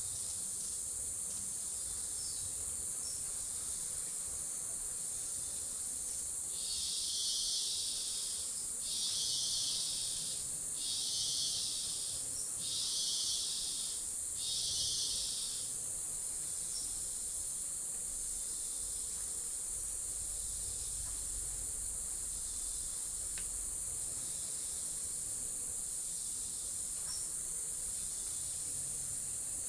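Steady high-pitched chorus of rainforest insects. Starting about six seconds in, a louder buzzing call repeats five times, each about a second long and about two seconds apart.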